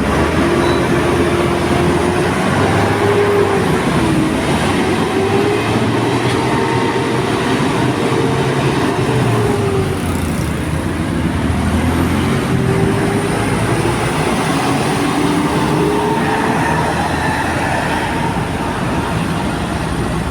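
A bus's basuri-type telolet horn playing a long wavering tune that slides up and down in pitch, in two long phrases with a short break about halfway, over the low running of the bus's engine.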